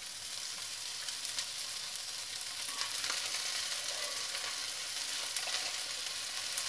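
Diced chicken and tofu sizzling steadily as they fry in a frying pan.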